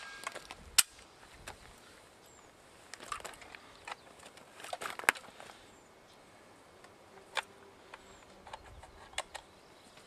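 Scattered sharp metallic clicks and clacks of a gun being handled: magazine and bolt being worked. The loudest click comes about a second in, with a cluster around the middle and a few single ones near the end.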